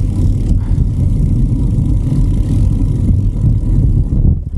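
Wind buffeting the microphone of a camera on a moving bicycle: a loud, steady low rumble, with a brief dip about four seconds in.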